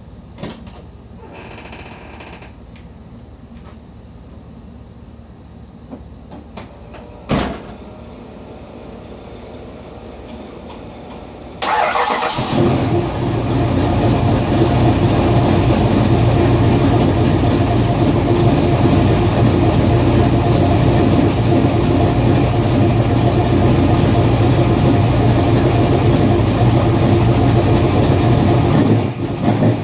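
A Fox-body Mustang's small-block Ford V8 is cranked by the starter a little under halfway in, catches at once and runs at a steady idle. Before it starts there is a single sharp thump.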